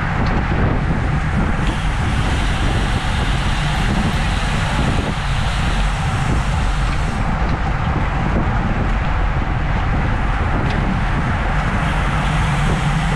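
Wind rushing over a bike-mounted action camera's microphone at about 21 mph, with tyre noise on asphalt, a steady rush with a heavy low rumble.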